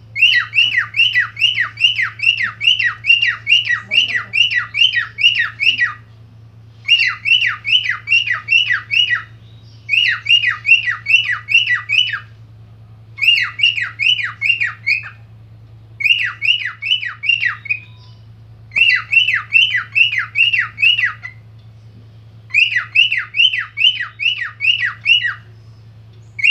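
Cockatiel mimicking a car alarm: rapid runs of falling whistled notes, about three or four a second, in bursts of a few seconds separated by short breaks.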